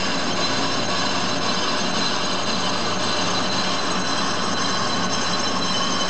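Metal lathe running steadily, spinning a sawmill carriage wheel for resurfacing its tread: a constant mechanical whir with several high, steady whining tones over it.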